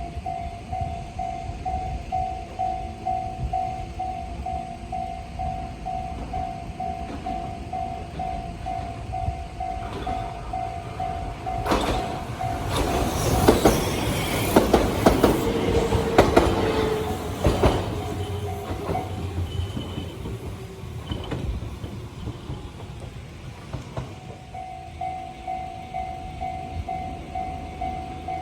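Japanese level-crossing alarm ringing a steady, pulsing two-tone ding, while an electric train passes over the crossing about halfway through, its wheels clacking over the rail joints. The alarm is heard plainly again near the end.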